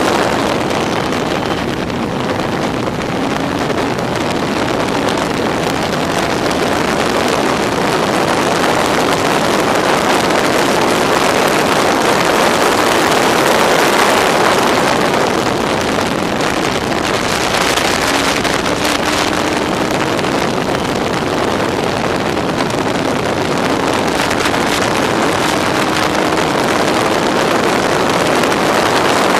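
Yamaha R1 motorcycle inline-four engine of a Locost race car running hard at speed, heard from onboard with wind rushing over the microphone. The engine note climbs in pitch about two-thirds of the way through.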